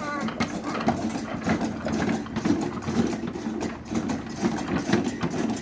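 A child's Ppung Ppung-i ride-on toy creaking in a quick, uneven rhythm as it is rocked, squeaking dry for want of oil.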